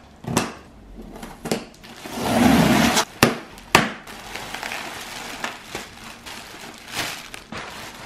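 A cardboard shipping box being opened: sharp snips and clicks as scissors cut its plastic strapping, a louder rough rustle of cardboard about two seconds in with two sharp clicks just after, then plastic air-cushion packing crinkling as it is handled.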